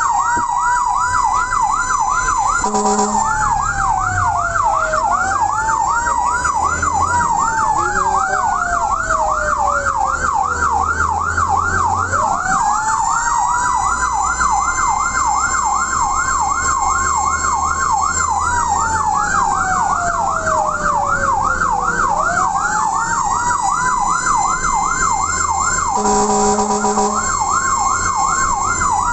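Electronic siren of a fire-rescue vehicle on an emergency run: a fast, repeating yelp sounds over a slow wail that rises and falls every few seconds. A short horn blast cuts in about three seconds in and again near the end, over the low hum of the engine.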